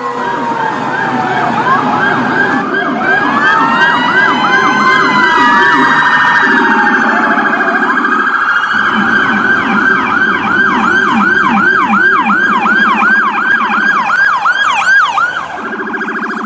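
Electronic emergency-vehicle siren running through its tones. Fast, repeating falling sweeps come about two or three a second over a lower buzzing tone, and the pattern switches several times.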